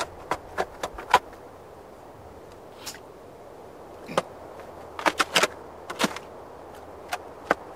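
Digging in dark earth and stones: about a dozen short, sharp, irregular knocks, several in quick clusters, over a faint steady background hiss.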